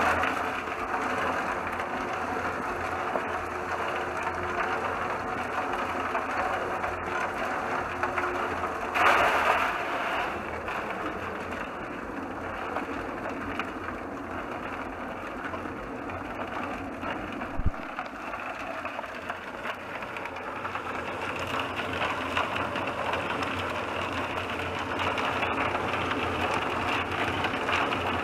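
Homemade cement mixer made from a 55-gallon steel drum turning under its electric motor and pulley drive, with concrete mix tumbling inside in a steady rushing hiss. The rush swells about nine seconds in, and there is a single sharp knock near eighteen seconds.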